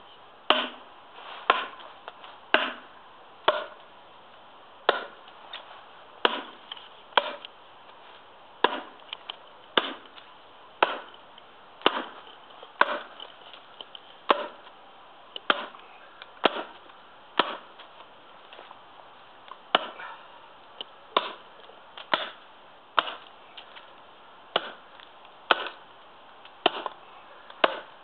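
Small Prandi Yankee axe chopping a cross-cut notch into a thin log, with sharp, evenly paced blows about one a second.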